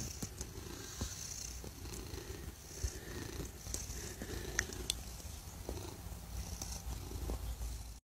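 A domestic cat purring steadily, a pulsing low rumble close to the microphone: a contented, happy cat. A few faint clicks come in the middle.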